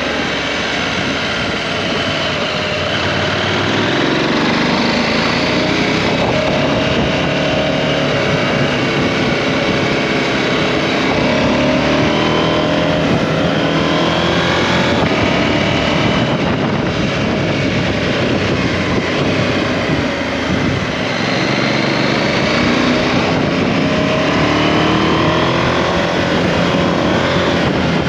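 KTM 790 Adventure's parallel-twin engine pulling through the gears on a winding road, its pitch rising and falling again and again, over steady road and wind noise.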